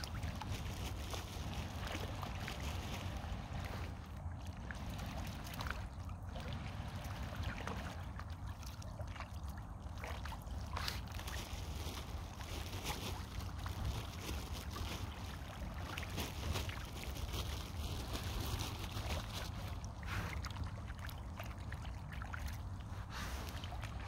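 Water sloshing and trickling with small irregular splashes as mallard ducks swim and paddle on a pond, with no quacking. Under it runs a steady low rumble of wind on the microphone.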